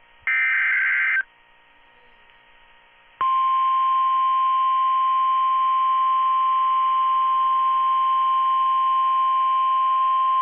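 Emergency alert broadcast tones: about a second of harsh, buzzy digital data burst (a SAME alert header), then after about two seconds of quiet a loud, steady single-pitch warning tone near 1 kHz starts and holds, the NOAA Weather Radio 1050 Hz alarm tone that comes before a warning message.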